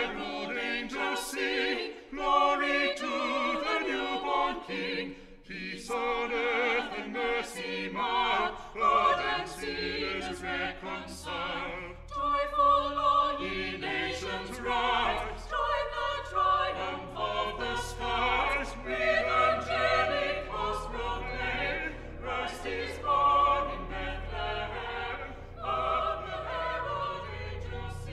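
Music: a choir singing, with a low bass accompaniment coming in about eight seconds in.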